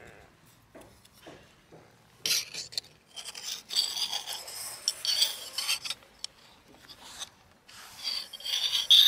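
Rubbing and scraping from hands handling small outboard water pump parts close to the microphone, in several bursts, with a few faint clicks in the first two seconds.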